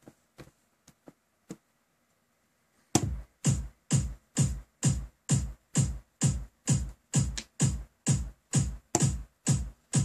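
A few faint clicks, then about three seconds in an electro house kick-drum loop from a Traktor remix deck starts: a steady four-on-the-floor beat at about two kicks a second. Each kick falls in pitch and has a hiss on top.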